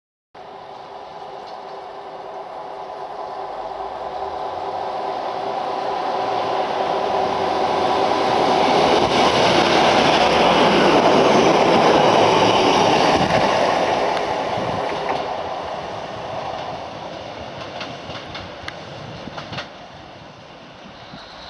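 A Class 156 diesel multiple unit approaching and passing: engine drone and wheel noise on the rails grow steadily louder, peak about halfway, then fade as it moves away.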